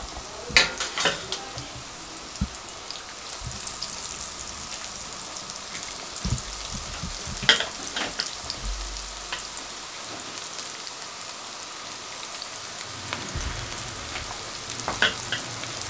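Pakoras of onion-and-potato batter deep-frying in hot oil in a wok: a steady sizzle with a few sharper crackles and spatters.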